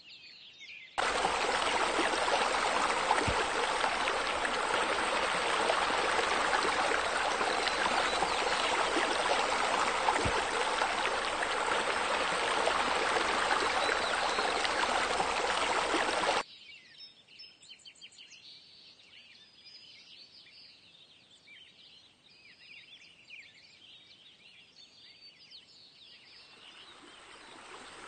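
Steady rush of running water that cuts in abruptly about a second in and cuts off just past the middle. After it, faint birds chirp, and the water sound fades back in near the end.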